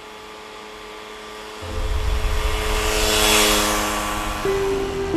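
Motor scooter riding up and past, its engine rumble and rushing noise starting suddenly about a second and a half in and swelling to a peak near the middle before easing off. Sustained background music notes come in under it and grow stronger near the end.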